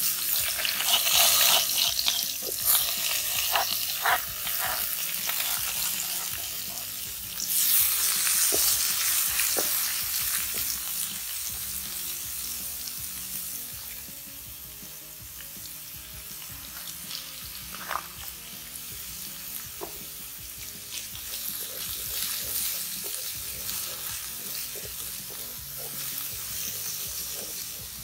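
Sliced winged beans sizzling in hot coconut oil in a wok as they are tipped in. The sizzle is loudest at the start and again about seven seconds in, then dies down over the second half, with scattered clicks of a spoon scraping the bowl and pan.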